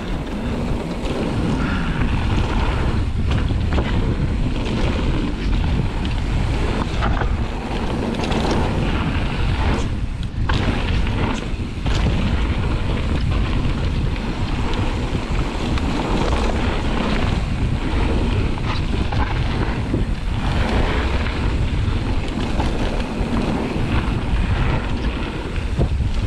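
Wind buffeting the microphone over the rumble of a mountain bike's tyres rolling fast down a gravel trail, with a few brief clatters of the bike over bumps about ten seconds in.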